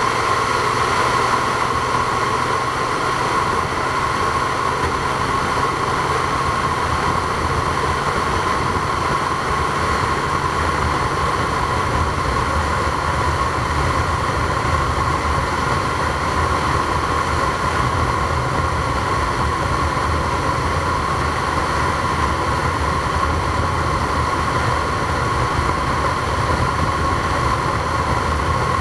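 Steady running noise of a moving vehicle: a low rumble with a constant high whine over it, unchanging throughout.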